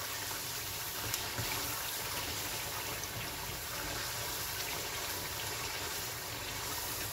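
Chicken karahi gravy, with cream stirred in, sizzling steadily in an aluminium karahi over the gas flame, with a few faint knocks of the wooden spoon as it is stirred.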